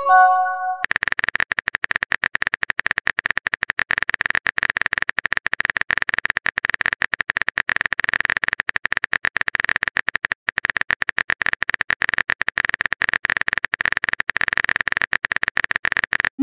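Typing sound effect, a rapid, even run of keyboard clicks, opening with a short chime-like message notification tone. A second notification starts right at the end.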